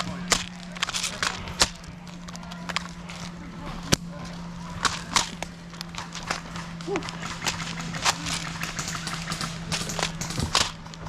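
Airsoft gunfire: scattered, irregular sharp cracks of shots and BB hits, the loudest about four seconds in, over a steady low hum.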